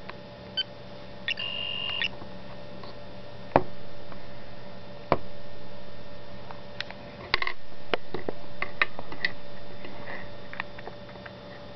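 Sci-fi LCARS interface sound effects from a Nokia 770 tablet's small speaker: a short electronic beep about a second in, then scattered sharp clicks and brief chirps, bunched together in the later part, over a steady low hum.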